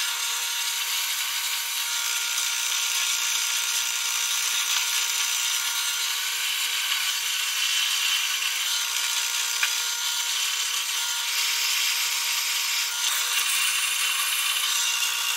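Bench drill press running, its bit boring an 8 mm hole through two stacked metal plates: a steady motor whine with the hiss of the bit cutting metal.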